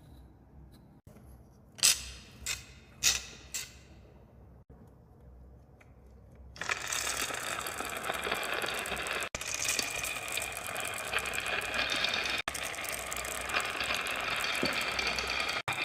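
Four sharp clicks, then from about six and a half seconds in a loud, dense rattling clatter of many marbles rolling and knocking down a wooden marble run.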